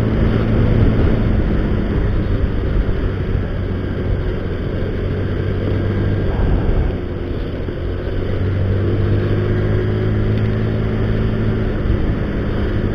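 Automatic scooter's engine running steadily at riding speed, a low hum under a rush of wind and road noise. The engine note eases off briefly about seven seconds in, then picks up again.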